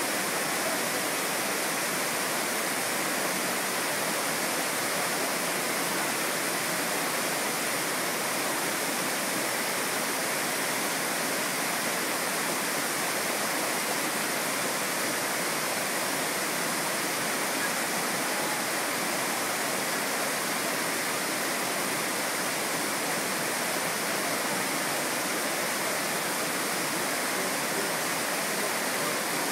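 Pearl Shoal Waterfall, a wide, shallow cascade, rushing steadily, a constant hiss of falling water with no breaks.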